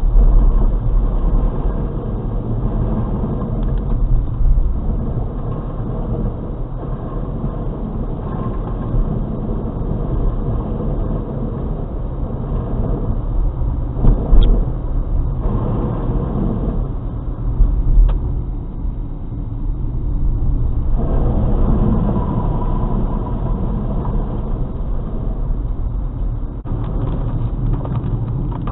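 Steady low rumble of a car's engine and tyres on a wet, flooded road, heard from inside the cabin. Two sharp knocks come about halfway through, a few seconds apart.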